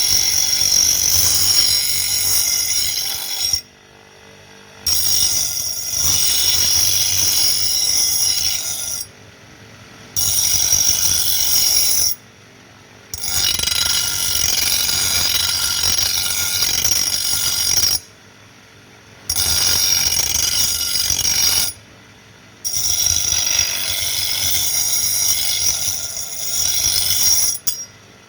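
Steady, loud, high-pitched grinding of metal on a blacksmith's trowel blade, stopping abruptly about five times for a second or so between passes.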